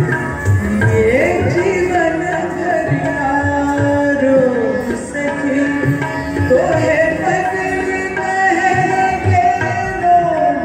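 South Asian dance music: a sung melody with sliding notes over a held drone, with drum strokes beneath.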